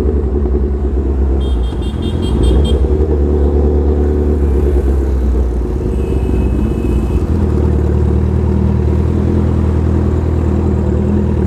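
Honda CBR1000RR superbike's inline-four engine running at low revs as the bike rolls slowly through city traffic. A rapid run of beeps sounds about a second and a half in, and a short horn about six seconds in.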